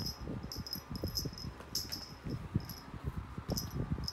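Small bell on a cat teaser wand jingling in short, irregular bursts, several a second, as the wand is shaken, over rustling and soft bumps from the bedding and the cat.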